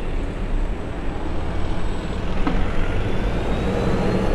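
Road traffic on a city street: motor vehicles running past with a steady low rumble, and a faint rising whine near the end.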